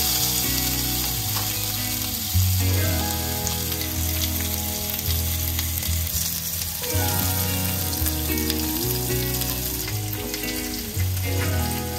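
Salmon steaks sizzling steadily as they fry in oil in a hot grill pan. Under it runs soft background music with low notes that change every couple of seconds.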